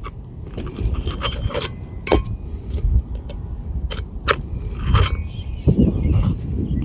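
Metal roofing tool working under asphalt shingles, unsealing them and prying at nails: irregular sharp clicks and clinks with scraping between them, over a low rumble.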